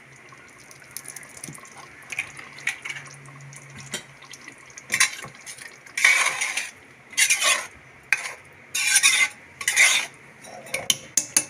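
Metal spoon stirring thick chicken curry in a metal pressure cooker. It begins quietly with a few light clicks, then from about halfway come about five loud scrapes of spoon against the pot.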